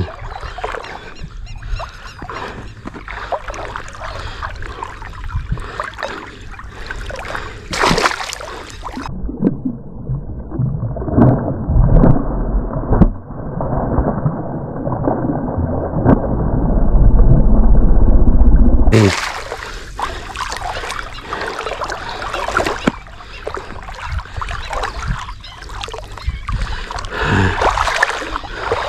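Hooked snakehead (murrel) thrashing and splashing in shallow, weedy water against the line. For about ten seconds in the middle the sound turns muffled and deep while the fish leaps clear with a splash, and a heavy low rumble comes near the end of that stretch.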